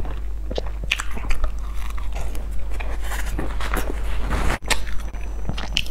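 Close-miked chewing of soft bread bun, with wet mouth clicks and smacks. A papery rustle of a tissue wiping the hands comes a few seconds in.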